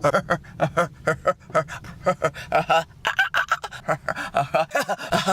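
A woman's voice chopped into a rapid run of short, repeated vocal bursts, about five a second, in an edited remix.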